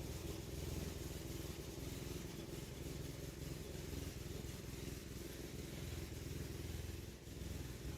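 Lawn mower engine running steadily, a low even hum.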